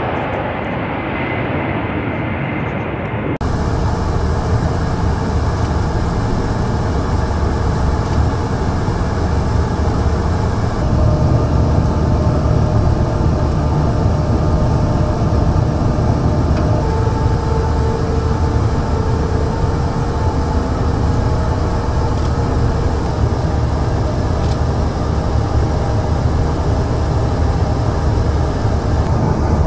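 A-10 Thunderbolt II's twin turbofan engines heard from the ground, a jet noise with a faint high whine. About three seconds in it cuts abruptly to a steady, heavy aircraft rumble with a few faint steady tones above it: the in-flight engine and airflow noise of a tanker aircraft during air-to-air refuelling.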